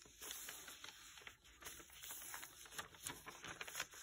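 Faint rustling and light irregular clicks of heavy paper pages being handled and turned in a handmade art journal.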